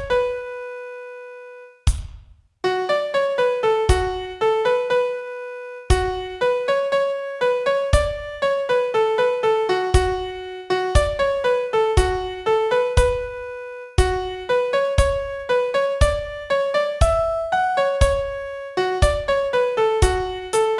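Piano playing a song melody one note at a time, each note struck and fading. Near the start one note is held and dies away, then there is a short gap before the melody resumes.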